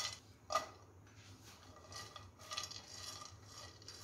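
A small steel bowl clinks twice against a non-stick kadhai as chopped cashews, almonds and raisins are tipped into ghee. Then come soft scrapes as a silicone spatula stirs the nuts around the pan.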